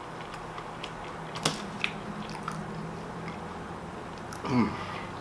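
Close-up chewing and crunching of a fried chicken sandwich, with scattered small crackles and two sharper crunches early on. Near the end comes a short falling 'mm' from the eater.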